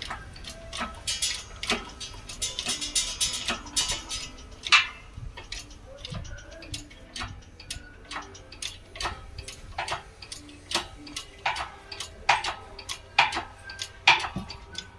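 A press forcing a new wheel bearing into its housing: irregular sharp clicks and knocks, about one or two a second, as the press is worked and the bearing goes in.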